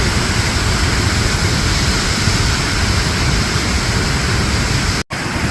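Waterfall roaring as a loud, steady rush of falling water. The sound cuts out for an instant about five seconds in, then resumes.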